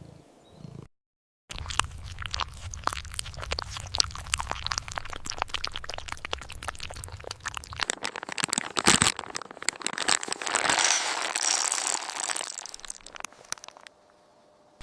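Kittens chewing crunchy food: a dense, rapid run of crunches and cracks, over a low steady rumble during the first half. The sound breaks off into silence briefly about a second in and again near the end.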